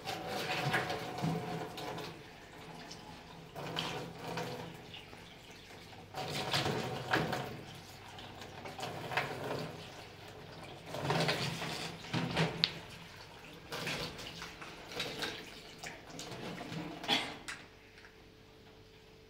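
Kitchen tap running onto hands being washed, the water splashing irregularly into a stainless steel sink; the flow stops near the end as the tap is turned off.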